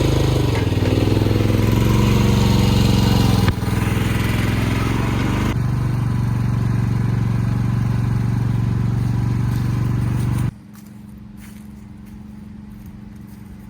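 Mini excavator's diesel engine running steadily, with abrupt shifts in its sound a few seconds in and a drop to a much quieter level about ten and a half seconds in.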